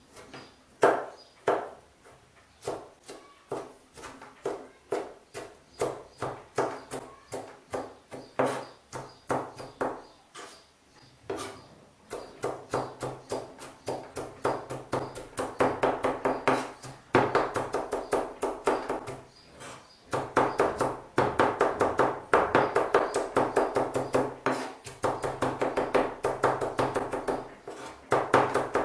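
Kitchen knife finely chopping tomatoes on a cutting board: repeated knocks of the blade against the board, spaced out at first, then a fast, even chopping rhythm from a little under halfway through.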